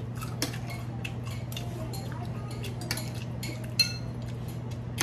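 Metal spoon and fork clinking and scraping on ceramic dinner plates while eating, a run of small clicks with one sharper clink just before the end. A steady low hum runs underneath.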